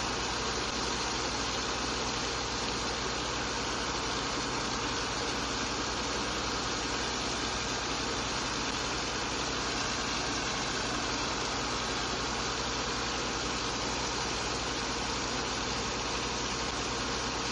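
Engine of a barge sand-unloading pump running steadily, mixed with a constant rush of water from a jet spraying onto the sand in the hold.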